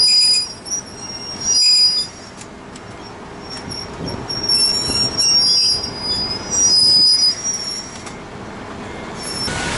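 Steel wheels of a slow-moving freight train squealing, as the DD56 diesel locomotive pushes its limestone hopper wagons along the track. The high thin squeal comes in several loud spells over a low rumble.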